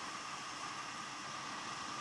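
Steady rushing wind noise over the camera on a moving motorcycle, with no clear engine note.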